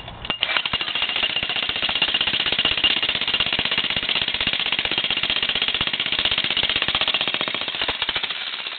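Bosch Brute electric breaker hammer running, its bit hammering concrete in a rapid, steady stream of blows with a high whine over them. It eases off near the end.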